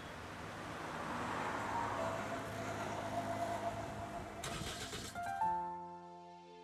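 Car engine running as the minivan pulls away. Its noise swells over the first few seconds, there is a knock about four and a half seconds in, and then it dies away, leaving soft background music.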